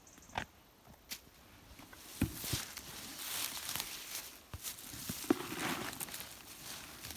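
Close rustling and crackling of forest-floor undergrowth as a mushroom is picked by hand, with several sharp clicks and snaps among it.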